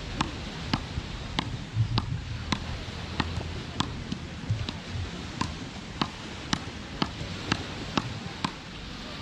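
Frescobol rally: a rubber ball hit back and forth with wooden paddles, a sharp clack about twice a second in an even, unbroken rhythm.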